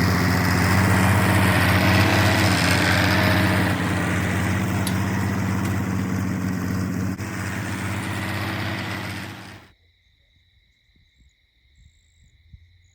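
Tractor engine driving a sawmill, running steadily at a constant pitch and stepping down a little in level twice, then cutting off abruptly about ten seconds in.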